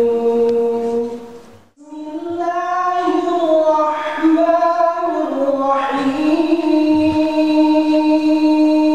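A man's voice in melodic Quran recitation (tilawah). A long drawn-out note ends about a second and a half in, and after a short breath a new, higher phrase begins, with ornamented turns in the middle and a long held note to finish.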